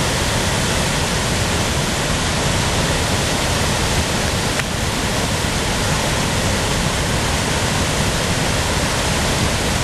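A wide waterfall cascading over stepped rock ledges into churning white water: a loud, steady rush of falling water that stays even throughout.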